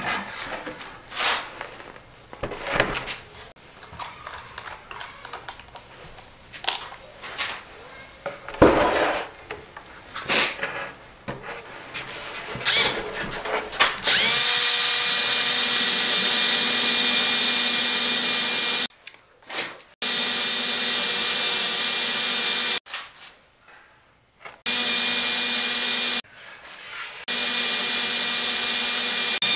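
Knocks and clatter as a plywood sheet is handled on a workbench. About halfway through, a cordless drill starts boring holes through 3/4 inch plywood, running at a steady pitch in four runs of a few seconds each with short pauses between.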